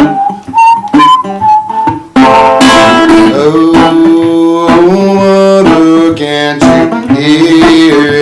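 Background music: an instrumental passage of an acoustic gospel song, with guitar and a single lead melody line that gives way to fuller chords about two seconds in.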